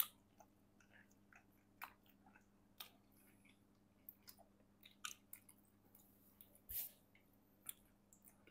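Faint close-up chewing of pizza: scattered soft mouth clicks and smacks, over a steady low electrical hum.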